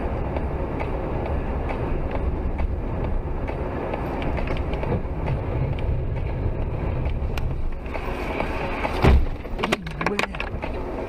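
Steady road and engine noise heard from inside a moving car. About nine seconds in there is one heavy thump, followed by a quick run of sharp clicks, as the car runs over clods of dirt and debris scattered across the road.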